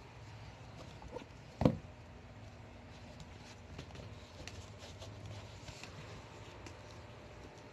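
A canvas sneaker knocked down onto a hard floor with one sharp thud about one and a half seconds in, after a smaller click; the rest is faint rustling and small clicks of the shoes and laces being handled.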